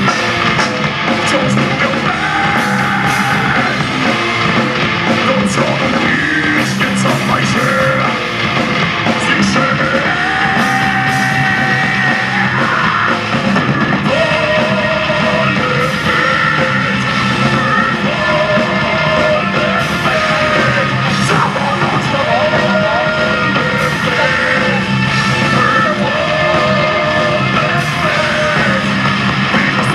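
Loud rock music played by a full band: drums, distorted electric guitars and a held, wavering melody line over them, without a break.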